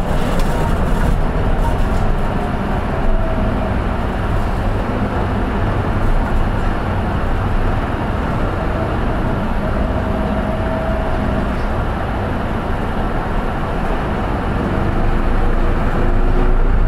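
Running noise inside a Hino Poncho small diesel bus: a steady engine drone and road rumble, with a faint whine coming and going. It gets a little louder near the end.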